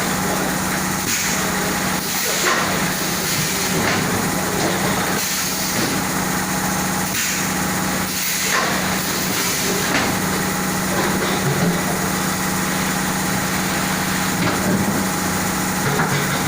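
Industrial washing machine for 20-litre water jars (inner and outer wash) running: a steady mechanical noise over a constant low hum, with brief louder surges every second or two.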